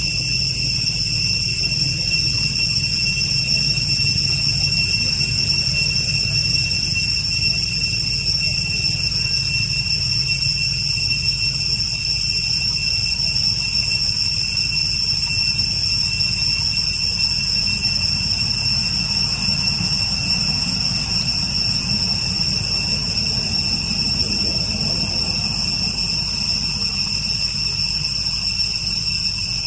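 Steady insect chorus of unbroken high-pitched tones at several pitches at once, over a low continuous rumble.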